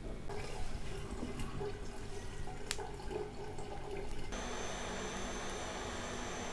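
Water running from a kitchen tap into a sink. About four seconds in it cuts off abruptly to a steady hum and hiss.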